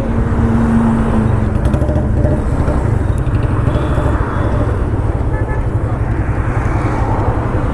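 Motorcycle under way, its engine running steadily with heavy rumbling wind noise on the microphone.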